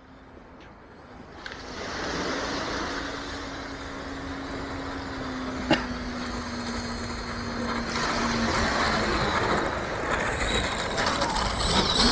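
The 12-blade 70 mm electric ducted fan of an RC jet rushing as the jet comes in to land, growing louder toward the end, with a single sharp click about halfway through.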